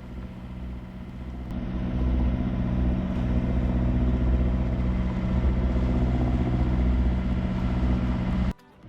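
An engine running steadily with a low hum, louder from about one and a half seconds in and cutting off abruptly near the end.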